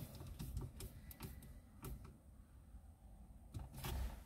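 Faint, scattered light clicks and taps of hands and a screwdriver working the plastic steering-column stalk and trim, with a small cluster of clicks near the end.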